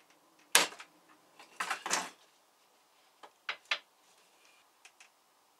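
Sharp clacks from a handheld tool worked against a flat panel: one about half a second in, a quick cluster of three around two seconds, three more a little after three seconds, and faint ticks near the end.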